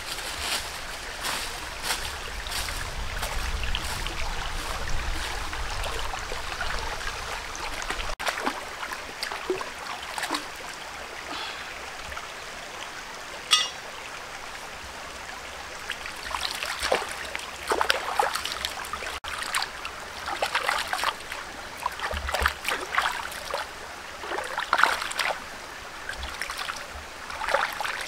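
Shallow rocky stream trickling, with repeated sudden splashes of feet and hands moving in the water, thickest in the second half. At the start, footsteps rustle through dry leaf litter.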